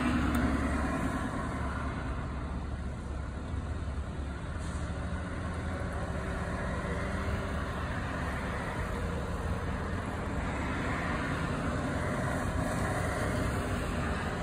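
Steady engine rumble and road-traffic noise, swelling a little now and then as cars pass.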